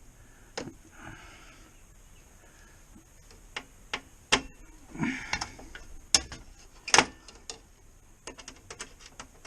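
Scattered sharp clicks and taps of a screwdriver and wire being worked at an electrical panel's ground bar, as the ground wire is fitted and screwed down, with some faint rubbing and a run of small ticks near the end.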